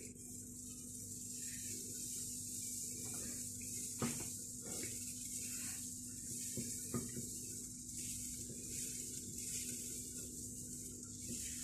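Steady hiss of thin kunafa batter sizzling on a hot non-stick frying pan as it is piped on in circles, with a low steady hum beneath and a few soft taps around the middle.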